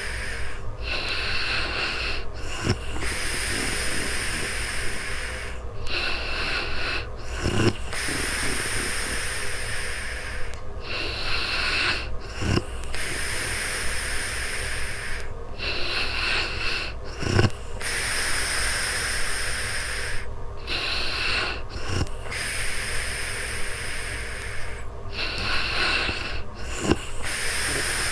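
A sleeping woman snoring in a slow, even rhythm: a hissy breath about every five seconds, each long breath opening with a brief low snort.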